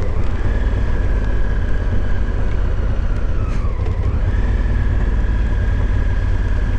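Motorcycle running at riding speed: a loud, steady low rumble with wind and road noise. A whine dips briefly about halfway through and comes back.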